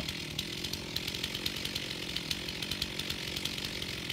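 Stihl MS201 two-stroke chainsaw idling steadily, not cutting.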